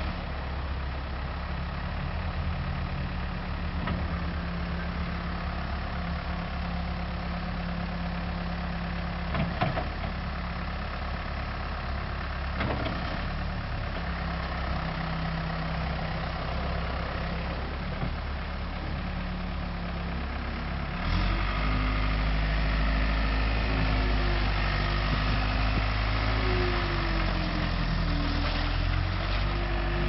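2005 New Holland LS190B skid steer's turbo diesel engine, just started, idling steadily. About two-thirds of the way through it runs up louder and deeper, with a whine that rises and falls as the machine works.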